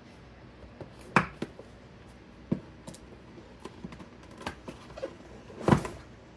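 A graphics card's cardboard box being opened and its contents handled: a series of scattered sharp clicks and knocks, the loudest about a second in and near the end.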